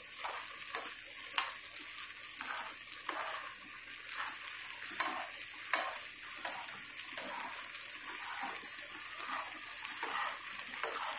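Black chickpeas in spice masala sizzling in a non-stick frying pan while being stirred, a steady hiss with a steel spatula clicking and scraping against the pan now and then, louder strokes about a second and a half in and near the six-second mark. The chickpeas are being roasted until the masala water dries off.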